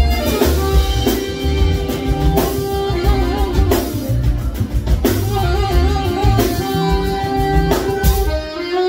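Live band music: a saxophone playing held and sliding melodic lines over a drum kit and bass. Near the end the drums and bass drop out while the melody carries on.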